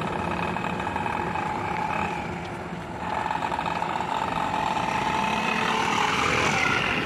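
Tata Ace Mega mini truck driving up and passing close by, its engine running steadily and growing louder as it nears.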